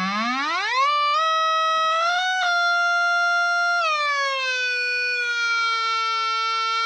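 Electric guitar through a Zvex Fuzz Factory fuzz pedal and amp, holding one sustained, heavily fuzzed, theremin-like tone. It glides sharply upward in the first second, steps up a couple of times, then sinks about four seconds in and settles lower before starting to rise again at the end.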